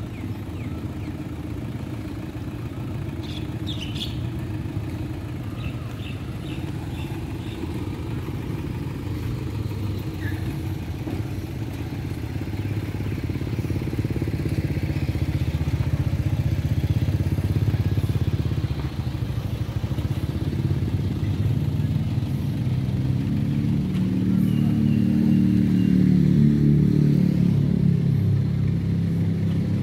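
A motor vehicle's engine running steadily, getting louder about halfway through and more pitched and pulsing near the end.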